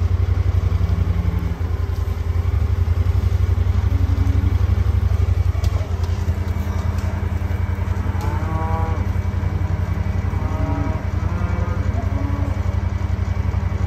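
A small vehicle's engine running steadily, with cattle mooing a few times in the second half.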